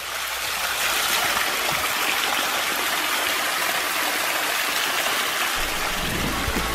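Water pouring steadily off the end of a wooden log trough and splashing into a shallow pool below, a constant rushing splash.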